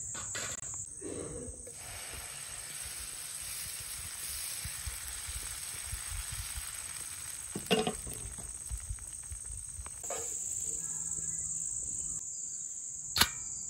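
Crickets chirring steadily in a high, even pitch, with a broader hiss through the middle stretch and a few sharp clicks, one about eight seconds in and one near the end.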